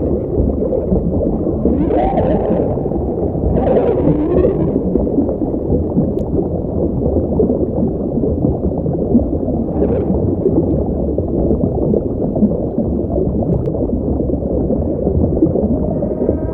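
Sound effect of a Liopleurodon's voice, whale-like: a constant deep rumble with short gliding, moaning calls about two and four seconds in and a brief one near ten seconds.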